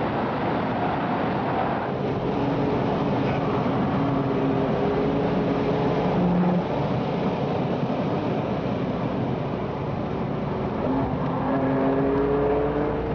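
RUF CTR Yellow Bird's twin-turbo flat-six engine running hard at speed. It cuts back sharply about six and a half seconds in, as at a gear change or lift, and its revs rise again near the end.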